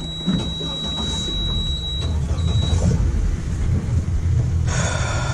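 Suzuki outboard engine running as the center-console boat is under way, a steady low rumble of engine, hull and wind. A faint thin high tone sounds through the first half and stops, and a brief higher buzz comes near the end.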